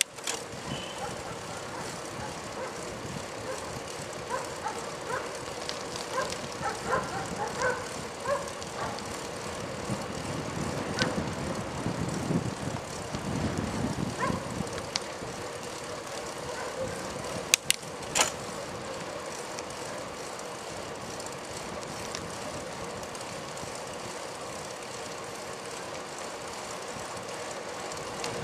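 Steady road and wind noise from a slow ride along a street, with a faint steady hum under it. A low rumble swells and fades about halfway through, and a few sharp clicks come about two-thirds of the way in.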